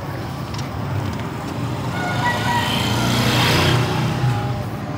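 Motorcycle engine of a sidecar tricycle running on the move, heard from inside the passenger cab. A low steady hum is joined by a rush of road noise that swells in the middle and eases near the end.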